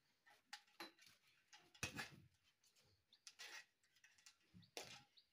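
Faint scattered clicks and light rattles of a portable photo light and its power cable being handled, in near silence.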